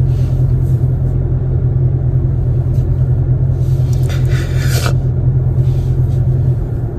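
Steady low rumble inside a parked car's cabin, with a short sniffle from a crying woman about four seconds in.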